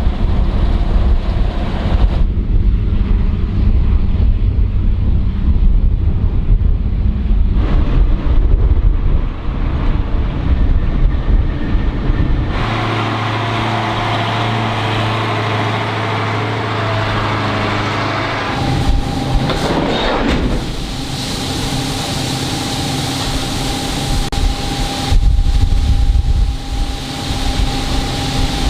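Heavy farm or processing machinery running with a steady low hum. The sound changes abruptly several times, each time to a different engine or machine tone.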